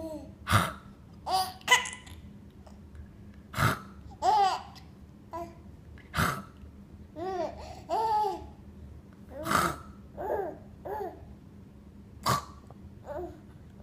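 Baby babbling: a string of short coos that rise and fall in pitch, broken every few seconds by sharp bursts of laughter.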